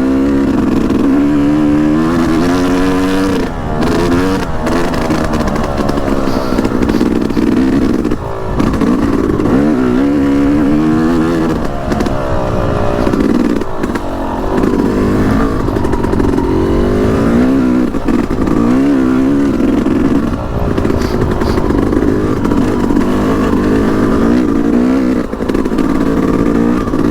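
Yamaha YZ250X's 250cc two-stroke single-cylinder engine under way on a dirt bike, its revs rising and falling over and over as the throttle is worked, with brief dips where the throttle is rolled off.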